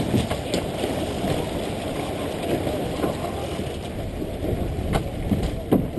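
Water and wind rushing along a small sailboat's hull, with a few sharp ratcheting clicks from the deck hardware as a crewman hauls in a sheet while the boat tacks. The clicks come near the start and twice more near the end.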